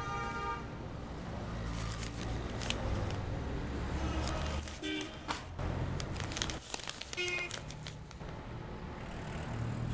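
Street traffic outside an open shopfront: a steady low rumble of passing vehicles, with a few short pitched toots and scattered light clicks.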